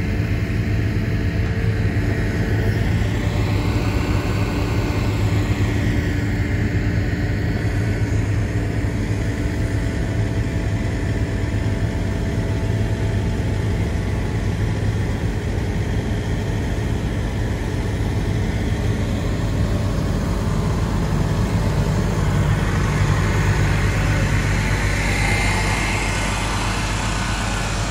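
Heavy equipment engine running at a steady speed, its pitch rising and falling slightly a couple of times.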